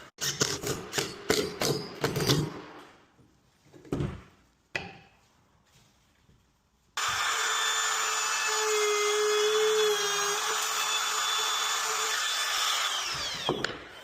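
A flurry of knocking and rattling for the first couple of seconds, then two single knocks. About halfway through, an electric router starts and runs at a steady high speed, its whine holding a fixed pitch, then winds down with falling pitch near the end.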